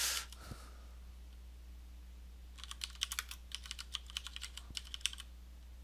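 Computer keyboard typing: a quick run of keystrokes starting about two and a half seconds in and lasting a little over two seconds, over a faint steady low hum.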